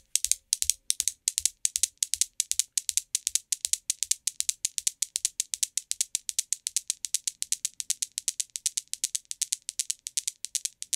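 Newton's cradle with its chrome steel balls clacking, one end ball swinging on each side out of step, so the outer balls strike the middle three in turn. It makes a fast, even train of sharp metallic clicks, several a second, with the clicks coming a little closer together toward the end.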